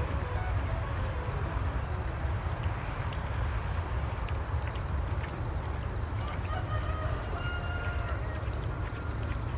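Outdoor rural morning ambience: wind rumbling on the microphone over a steady high insect chorus, with a faint distant bird call about seven seconds in.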